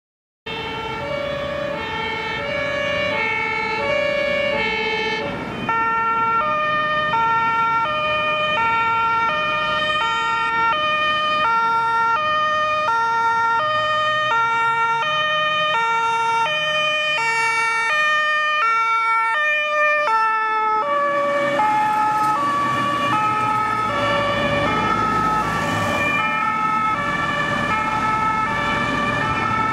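German two-tone emergency vehicle sirens (Martinshorn) of an emergency doctor's car and an ambulance, switching between a high and a low note in a steady rhythm. The first siren starts abruptly about half a second in, and a second siren joins about five seconds later, the two sounding together out of step. In the second half, engine and road noise grow under the sirens.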